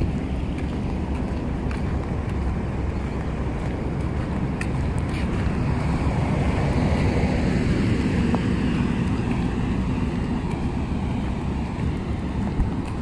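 Wind buffeting the microphone outdoors: a steady low rushing noise.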